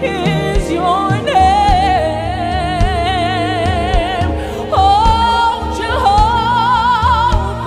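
Live gospel worship music: a lead voice sings long held notes with wide vibrato over sustained band chords and a steady low drum beat.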